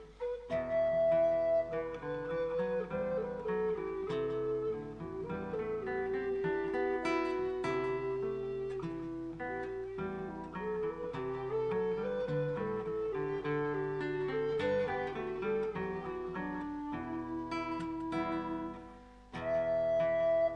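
Background acoustic guitar music, a plucked melody over chords. It drops away briefly near the end, then starts up again.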